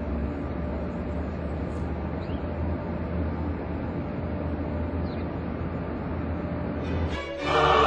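Steady low rumble of outdoor street ambience, like distant traffic. Choral music comes in near the end.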